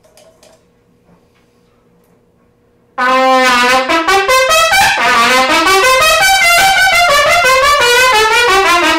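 C trumpet played loudly, starting about three seconds in, in quick runs of notes that sweep up and down again and again.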